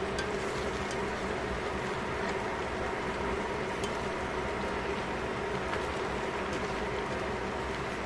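Chicken pieces simmering in liquid in a stainless steel pot: a steady bubbling hiss over a steady hum, with a few faint clicks of tongs against the pot.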